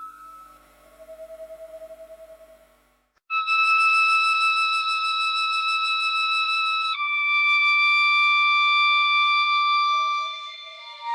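Synthesized sci-fi cryo-chamber ambience: a faint wavering tone, a short gap, then a loud sustained flute-like electronic tone that steps down in pitch about two-thirds of the way through and fades near the end.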